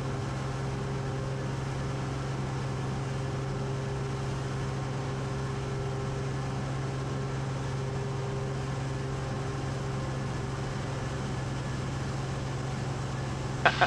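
Cessna 180's six-cylinder engine and propeller droning steadily at power during a low go-around pass over the runway.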